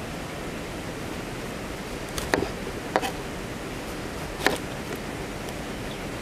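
A steady hiss, with three sharp knocks about two, three and four and a half seconds in.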